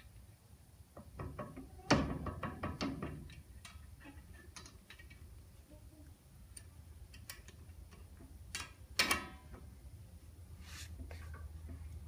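Metal clinks and knocks of a driveshaft universal joint being seated by hand into the rear axle's pinion yoke. There is a sharp knock about two seconds in and another cluster about nine seconds in, with lighter ticks of small fasteners between.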